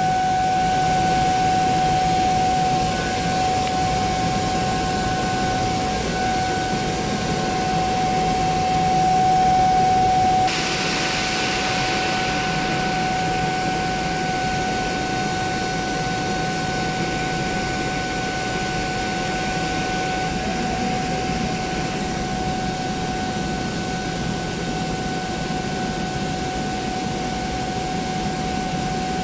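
Industrial air compressor running with a steady mechanical drone and a constant high whine. About ten seconds in, a hiss starts suddenly and fades away over the next ten seconds or so.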